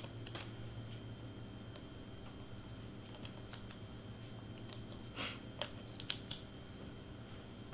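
Quiet handling of paper and foam tape on a cutting mat: scattered light clicks and short rustles, the loudest about five to six seconds in, over a steady low hum.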